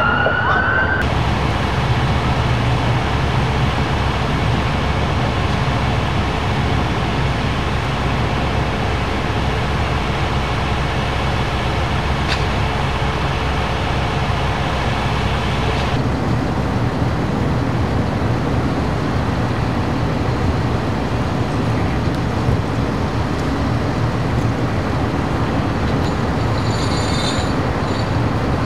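Fire engines' diesel engines idling, a steady low rumble. A siren's rising wail cuts off about a second in.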